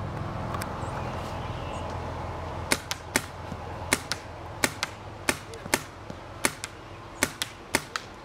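Paintball marker firing a string of sharp pops, about fourteen shots at two to three a second, starting a little under three seconds in.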